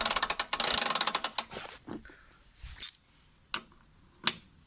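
Rear wheel of a Honda HRS536 lawn mower turned by hand, its ratchet drive in the hub clicking rapidly for about two seconds, then a few single clicks as the wheel slows and stops.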